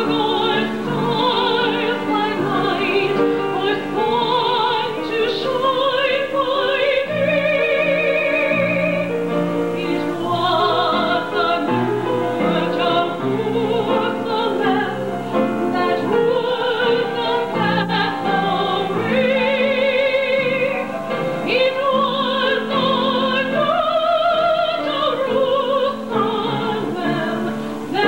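A woman singing a solo with a wide vibrato into a handheld microphone, over a steady instrumental accompaniment of held chords.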